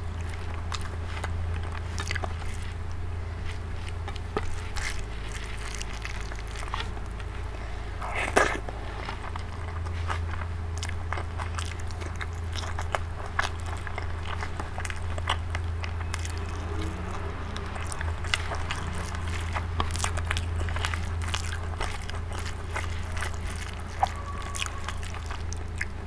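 Close-miked eating sounds: chewing and wet mouth smacks while eating dal and rice by hand, with frequent small clicks and one louder bite about eight seconds in. A steady low hum runs underneath.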